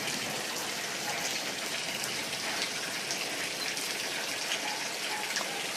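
Steady rain falling, with the ticks of individual drops hitting nearby surfaces.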